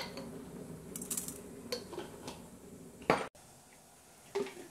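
Cooking pot and utensils on a kitchen hob: a steady low hum with a few light clinks, then a louder knock of metal about three seconds in.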